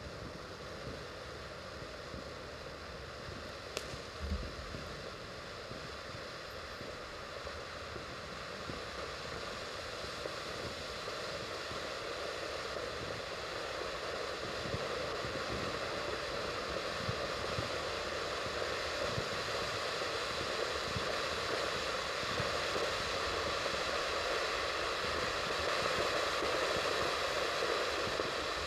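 Firework fountain spraying gold sparks: a steady hiss that slowly grows louder.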